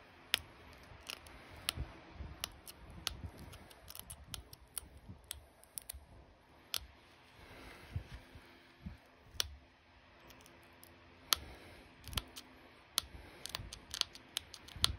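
Pressure flaking an opalite arrowhead with a hand-held pressure flaker: about twenty short, sharp clicks at irregular intervals as small flakes snap off the stone's edge.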